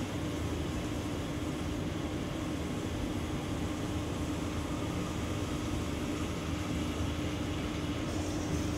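Steady background hum and hiss with a faint constant tone, unchanging throughout; no distinct sound from the burning sodium stands out.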